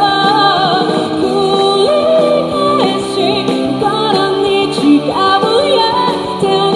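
A woman singing a song live over accompanying music, her held notes wavering with vibrato.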